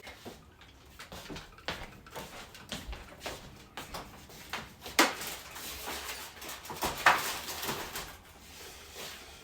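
Scattered knocks, clicks and rustles of food containers and items being handled and moved around a refrigerator, with two sharper, louder knocks about five and seven seconds in.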